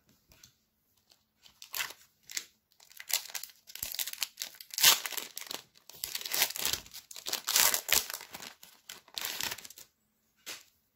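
Foil wrapper of a Pokémon trading card game booster pack being torn open and crinkled by hand: a busy run of irregular crinkling and tearing rustles that starts about a second and a half in, is loudest in the middle and stops shortly before the end.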